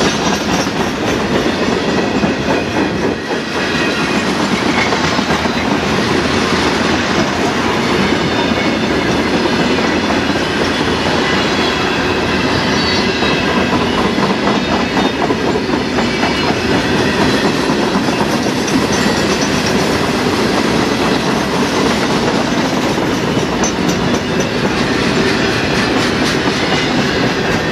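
Empty CSX crosstie rack cars of a freight train rolling past close by: a steady, loud clatter of steel wheels clicking over the rail joints.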